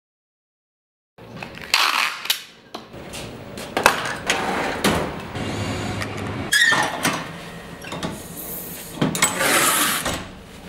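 Handling noises from art-moving work: a run of clicks, knocks and clatters with bursts of scraping and rustling, from tool cases, latches and metal frames being handled, starting about a second in.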